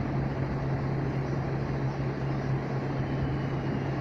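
A steady low hum over an even hiss, unchanging throughout.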